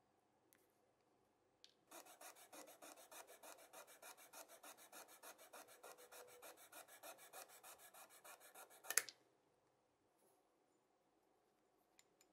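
Jeweler's saw cutting through a small die-cast metal Hot Wheels part, a fast even rasp of about six strokes a second for about seven seconds, ending in one sharp click.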